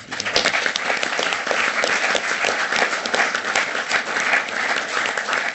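Audience applauding: dense, steady clapping from many people that starts abruptly.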